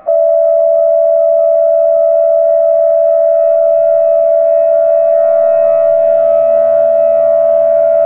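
Emergency alert attention tone: one loud, steady tone held for about eight seconds, switching on and off abruptly.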